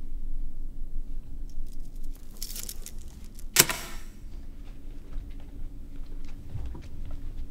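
Keys clicking on a white Apple desktop keyboard, with a brief scratchy noise a little over two seconds in and one sharp, louder clack about three and a half seconds in.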